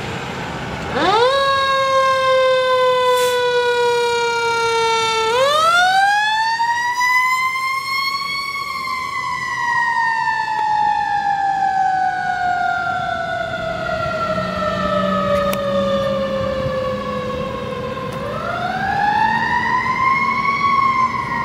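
Fire engine siren starting about a second in, then wailing: its pitch climbs, falls slowly over several seconds, and climbs again near the end.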